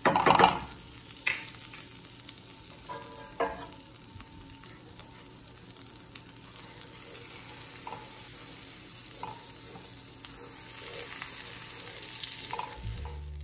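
Butter and flour sizzling in a nonstick skillet while a roux is stirred with a wooden spatula. There is a loud knock at the start and a few lighter taps, and the sizzle grows louder near the end. Music with a bass line comes in right at the end.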